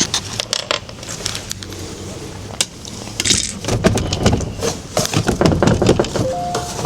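Plastic cab-door trim being handled and worked loose: scattered clicks and knocks, growing into a busier rattling clatter about halfway through.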